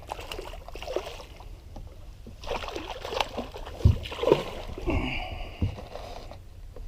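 Knocks and thumps on a small fishing skiff, with several heavy thumps in the middle.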